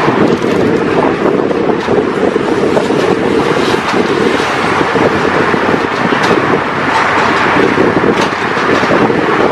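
Rail track-laying machine running: a loud, steady mechanical din, with a few sharp knocks scattered through it.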